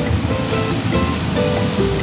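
Background music, a melody of held notes changing every half second or so, over a steady rushing hiss.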